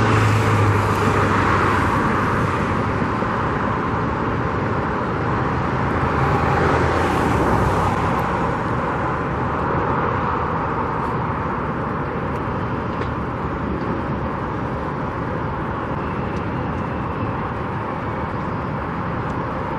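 Steady roadside traffic noise, growing louder as vehicles pass near the start and again about seven seconds in.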